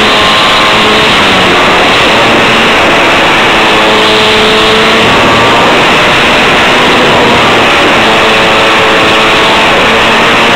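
Model plane's motor and propeller running in flight, heard from a camera mounted on board, under a loud steady rush of airflow on the microphone. A faint whine shifts up and down in pitch as the motor's speed changes.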